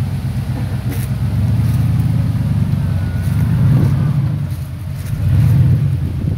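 Rock buggy engine running under load as the buggy crawls up a steep rock ledge, a deep steady rumble that swells twice, past the middle and near the end.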